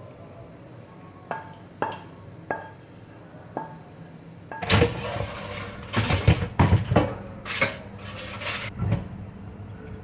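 A few light clinks, then, about halfway through, an air fryer's drawer basket is slid out with a loud run of scraping and rattling.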